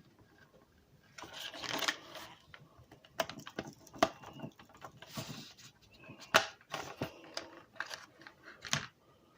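Plastic packaging rustling, with scattered sharp clicks, as a trading card is carefully worked out of its pack.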